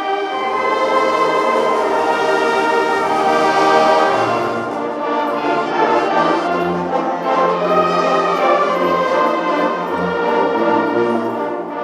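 Wind band playing a slow piece: brass instruments holding chords over a moving bass line.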